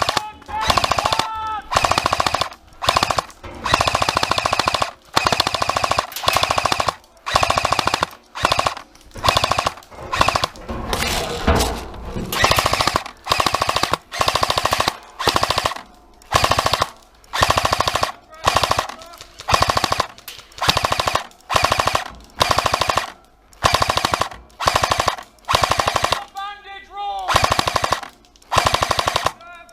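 Airsoft machine gun firing on full auto in short bursts, about one burst a second, each a rapid rattle of shots.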